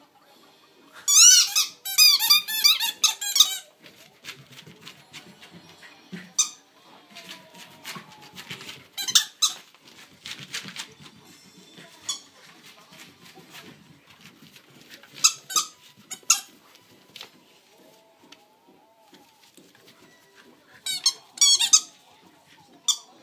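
A dog's squeaky toy squeaked by a Cardigan Welsh corgi, in clusters of quick, high, wavering squeaks every few seconds. The longest and loudest run of squeaks comes about a second in.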